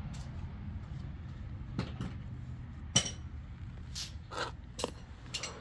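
Steady low hum with scattered light clinks and taps, the sharpest a single clink about three seconds in.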